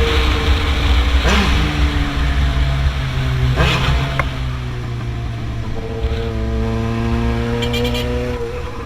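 Yamaha XJ6's inline-four engine running steadily near idle through a 4-into-1 exhaust, a deep, even rumble, with two brief sweeping swells in the first few seconds.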